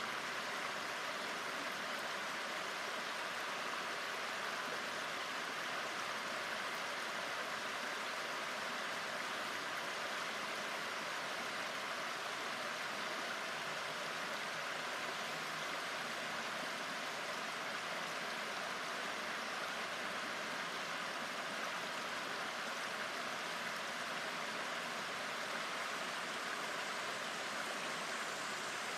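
Shallow river water running steadily over stones in a riffle.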